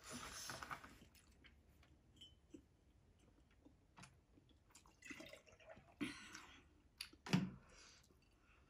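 Milk poured from a plastic jug into a glass mason-jar mug, with a few light knocks of glass and plastic, and one louder thump about seven seconds in as something is set down on the table.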